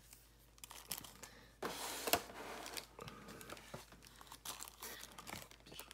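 Clear plastic blister tray crinkling and crackling as it is handled, with a louder stretch of crackling about one and a half to three seconds in and scattered smaller clicks and rustles after.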